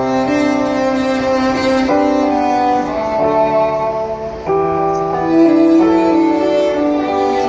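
Recorded music for a dance performance: slow bowed-string music with violin and cello, long held chords changing every second or two.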